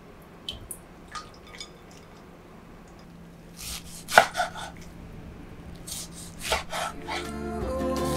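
Kitchen knife chopping blanched leafy greens on a wooden cutting board: a few light clicks at first, then sharp knife strokes striking the board in two short runs. Background music comes in near the end.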